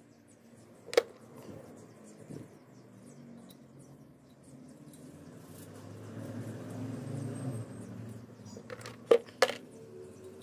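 Sharp metallic clinks of rebar and steel pipe knocking together as the frame is handled: one about a second in and two close together near the end, over a low steady hum.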